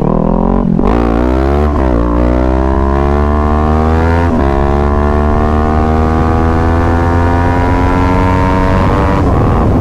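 Motorcycle engine accelerating through the gears: its pitch climbs, drops sharply at each shift, three times in the first five seconds, then rises slowly in a long pull in the top gear.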